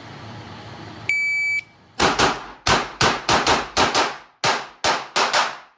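An IPSC shot timer gives a short high start beep. About a second later a handgun fires twelve rapid shots, mostly in quick pairs with short gaps between them, over about three and a half seconds. The strings of shots at 6 paper targets vary in rhythm.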